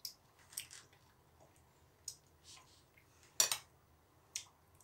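Light, scattered clicks and scrapes of a metal spoon against a glass bowl and lavash sheets as cottage cheese is spooned out, with one louder tap about three and a half seconds in.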